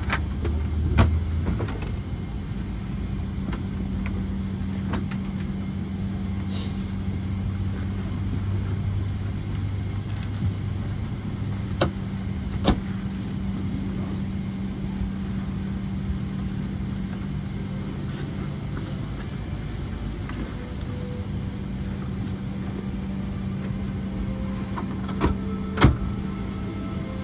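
Parked airliner cabin ambience: a steady low hum from the aircraft's systems, with scattered sharp clicks and knocks and a light jangle, the loudest two knocks coming near the end.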